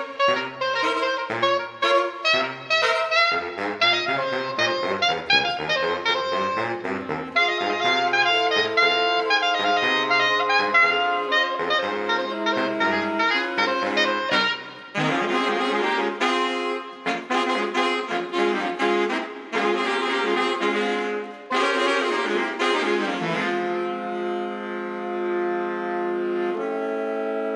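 Saxophone quartet of soprano, alto, tenor and baritone playing a swing arrangement. The soprano leads a busy line over a moving bass line. About halfway through the four switch to short chords played together in rhythm, and near the end they settle into long held chords.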